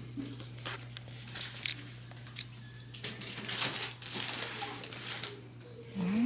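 Light rustling and crinkling with scattered small clicks, busiest in the middle stretch, over a faint steady low hum.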